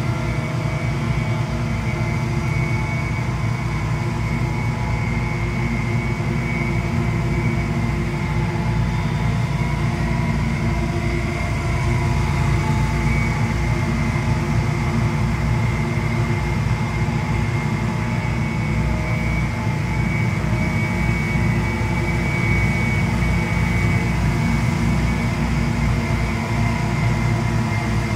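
Several backpack leaf blowers running at once: a steady engine drone with a high whine on top, holding level throughout.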